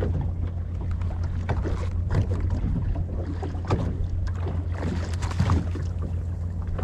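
A boat's engine running with a steady low hum, with irregular gusts of wind on the microphone.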